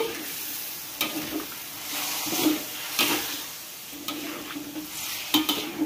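Chicken and pickled greens sizzling in a hot wok while a metal spatula stirs them, with a steady hiss and a few sharp clicks of the spatula against the pan.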